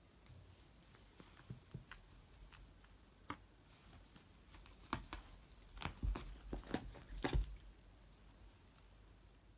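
Feather wand cat toy jingling in irregular bursts as a cat bats, bites and wrestles it, busiest in the second half, with a couple of dull knocks about six and seven seconds in.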